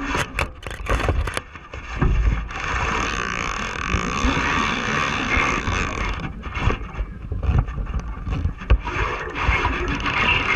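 Spinning reel on a feeder rod being wound in, a steady whirring hiss for a few seconds in the middle, with sharp handling knocks and clicks around it near the start and toward the end.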